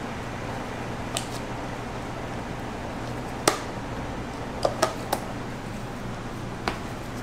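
Dough scraper cutting through dough and knocking on a stainless steel work table: a handful of short, sharp clicks, the loudest about halfway through, over a steady background hum.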